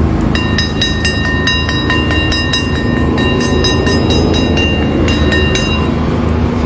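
A metal singing bowl struck rapidly and over and over, about three to four strikes a second, ringing on steadily and stopping about six seconds in. Under it runs a heavy rumble of wind and rain on the microphone.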